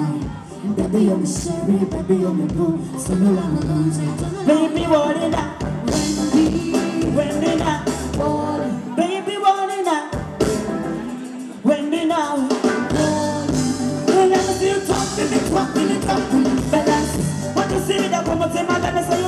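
Live band playing Ugandan pop with a female lead singer singing into a microphone, bass guitar and keyboards under her voice. The bass drops out for a few seconds around the middle, then comes back in.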